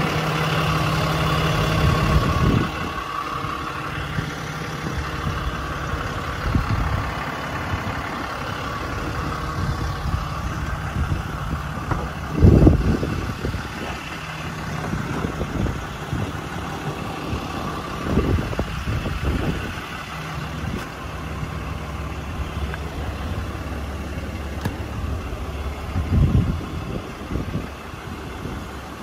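A Ram 4500's 6.7-litre Cummins inline-six turbo-diesel idling steadily, with a few dull thumps over it, the loudest about halfway through.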